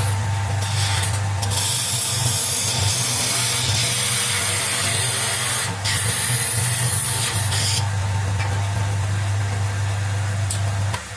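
Wood lathe running with a steady motor hum while a turning chisel cuts the spinning wood, giving a hiss that comes and goes as the tool meets and leaves the wood. The motor hum stops near the end.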